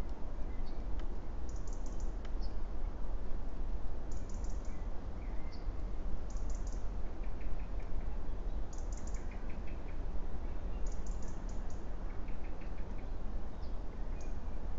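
Songbirds singing: a short, high phrase repeated about every two seconds, with a few lower trilled phrases in between. Under them runs a steady low rumble and hiss.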